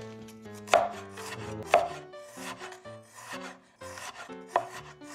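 Cleaver chopping peeled fresh ginger into thin strips on a bamboo cutting board. A series of uneven sharp knife strikes on the wood, the two loudest about one and two seconds in.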